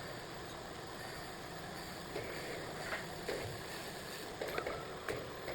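Small CNC wood lathe running: a steady rushing noise, with a few short sharp clicks in the second half.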